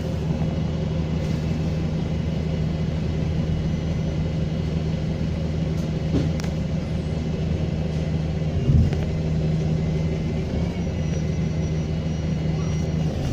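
A bus's diesel engine running steadily with a deep rumble, with a faint high turbocharger whistle coming and going near the end. There is a single thump about nine seconds in.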